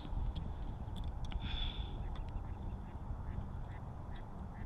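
Scattered short quacking calls, like ducks, over a steady low rumble of wind on the microphone.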